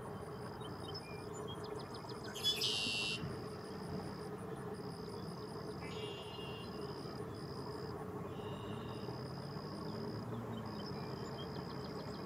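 Insects trilling in a steady high-pitched tone that stops and starts every second or two. A short, loud bird call comes about two and a half seconds in, all over a low background rumble.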